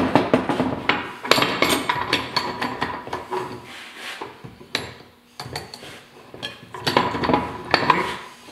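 Steel parts of an old Ford synchromesh transmission clinking and knocking against each other and the workbench as they are handled, with the input shaft being worked into its bearing in the bellhousing. Irregular clinks and knocks, with a lull just past the middle.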